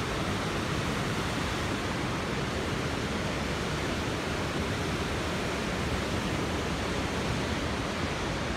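Muskoka River floodwater rushing steadily over Bracebridge Falls, a continuous even rush of whitewater at record flood level.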